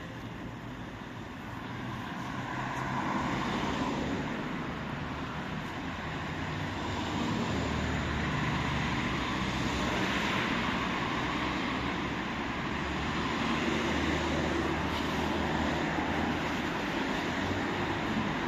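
Street traffic noise, with a vehicle's low engine rumble that builds over the first few seconds and then runs steadily.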